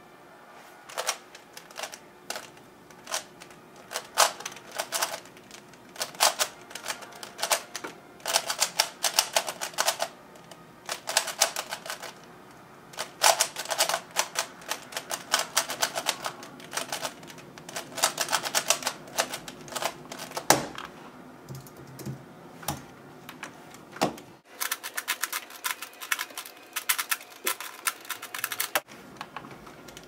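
Rapid plastic clicking and clattering of a FII 3x3 speed cube, lubricated with shock oil, being turned one-handed in bursts of fast turns with short pauses between them. A single sharp knock comes about twenty seconds in.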